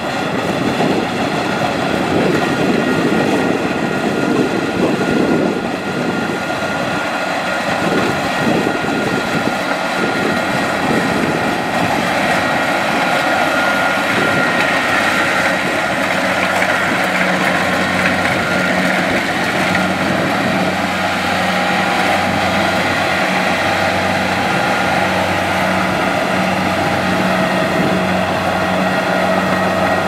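Kubota DC-70 rice combine harvester running steadily while cutting and threshing rice: a continuous loud drone of engine and machinery. A steady low hum comes through more clearly in the second half.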